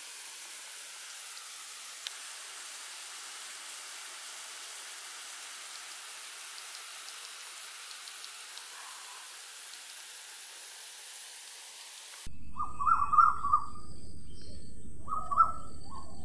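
Steady hiss of water spraying from a garden sprinkler. About twelve seconds in it cuts off suddenly, and outdoor ambience follows with a bird calling a few times.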